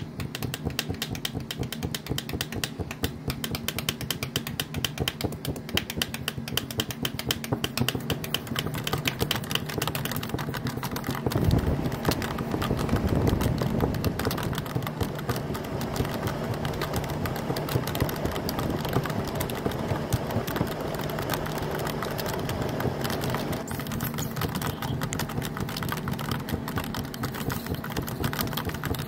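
Dense, rapid clicking, like typing, over a low steady hum, swelling louder and deeper for a few seconds about eleven seconds in.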